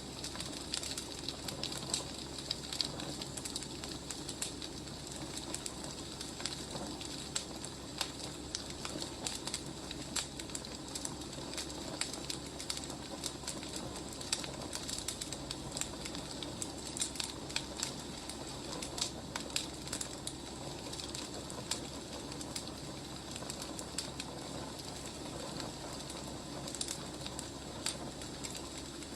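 Wood fire burning, crackling, with frequent sharp irregular pops over a steady hiss.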